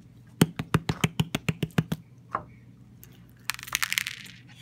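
A plastic slime jar knocked upside down on a table to shake the slime out, about ten quick sharp taps, then one more. Near the end comes a short crackling as the bead-filled slime drops out and is squeezed.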